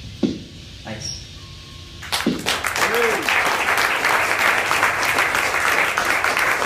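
Last struck chords of an acoustic guitar ending a song, then about two seconds in an audience breaks into steady applause that continues, with one brief whoop from the crowd.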